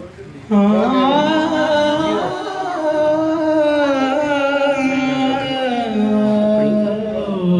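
A man singing a naat into a microphone: one long, drawn-out sung phrase that starts about half a second in, held and wavering slowly in pitch.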